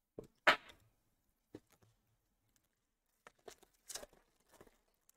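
Trading cards and packs being handled at a desk: a scattering of short rustles and taps, the loudest about half a second in and a quick cluster past the three-second mark.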